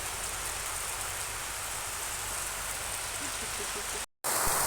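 Heavy rain falling, a steady hiss. It cuts out for an instant about four seconds in and comes back with a slightly different tone.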